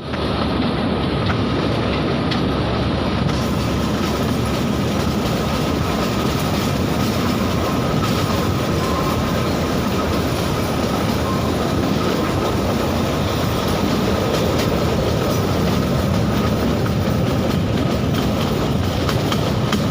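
Shimla toy train, a narrow-gauge train, running along the track: a steady rumble of wheels and carriages with a faint steady whine over it.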